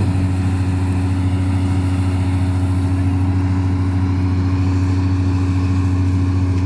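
Wheat combine harvester running at a steady speed, its engine giving a constant, unchanging low hum.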